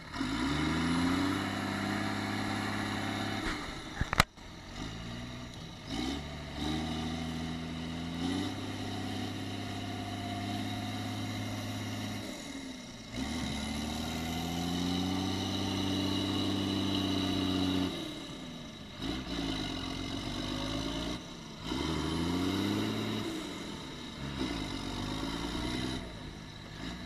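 Diesel engine of a Case IH Quadtrac tracked tractor working under load pulling a scraper, its pitch rising and falling repeatedly as it revs. A single sharp click about four seconds in, and the engine sound breaks off briefly several times.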